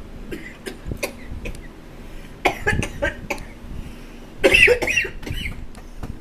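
A woman coughing hard in several bursts as she chokes, with the loudest fit about four and a half seconds in.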